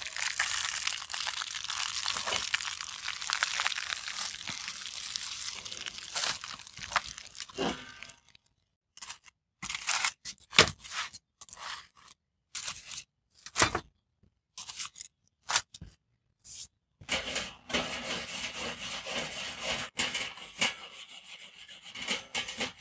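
Aluminium foil packets crinkling and rustling as they are handled. After about eight seconds the sound breaks into short separate rustles and clicks with dead silence between them, then the steady crinkling comes back near the end.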